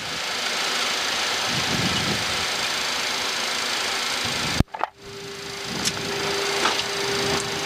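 Steady rushing cockpit noise of an airliner rolling out on the runway after landing, decelerating through about 60 knots. About four and a half seconds in there is a sharp click and a brief dropout, after which a steady low tone joins the rush.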